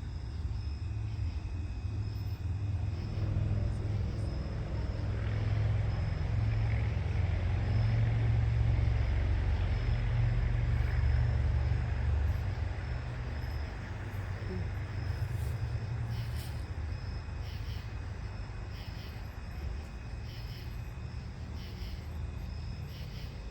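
Low rumble of a motor vehicle that swells in the middle and then eases off, over a faint steady insect drone.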